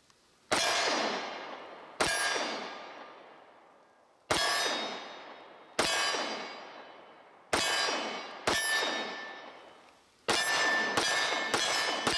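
Subcompact Glock pistol firing ten shots outdoors. The first six come slowly, about one every one and a half to two seconds, and the last four come in a quick string near the end. Each sharp crack is followed by a ringing echo that fades over a second or more.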